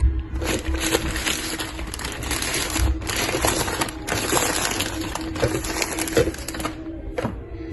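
Packaging crinkling and rustling as the digital wall clock is handled and unwrapped. It comes in several long stretches with brief pauses and stops shortly before the end.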